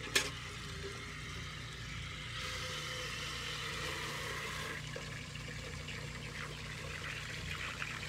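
Water running from an outdoor hose spigot into a galvanized metal bucket, a steady rushing pour as the bucket fills. One sharp knock just after the start.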